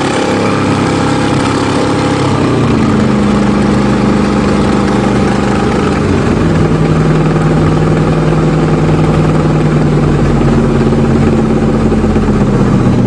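Old carbureted car engine running just after a cold start, heard from inside the cabin; the idle drops lower about two seconds in, then runs steadily.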